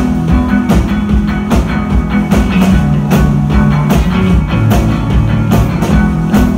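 Live rock band playing loud: distorted-sounding electric guitars with sustained low notes over a drum kit keeping a steady beat.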